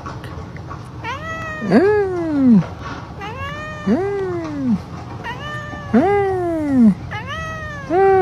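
Tabby cat meowing: four long, drawn-out meows about two seconds apart, each rising and then falling in pitch.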